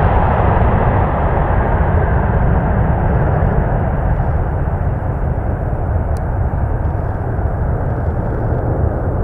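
Airbus A350-1000's Rolls-Royce Trent XWB-97 jet engines at takeoff thrust as the airliner climbs away: a steady jet noise that slowly fades and grows duller.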